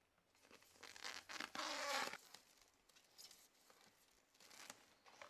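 Plastic wrap being pulled off its roll and stretched around a tree trunk, giving a few short crackling rasps. About one and a half seconds in there is a louder, longer screech lasting about half a second.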